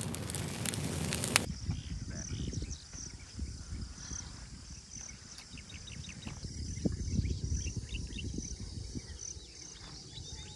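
Campfire crackling with sharp pops, cutting off about a second and a half in. Then insects chirping in a regular high pulse over a low rumble.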